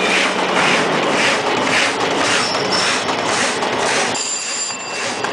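Automatic roll-to-sheet paper cutting machine running, its servo-driven cutter clattering in a steady rhythm of about two strokes a second. There is a brief lull with a thin high whine about four seconds in.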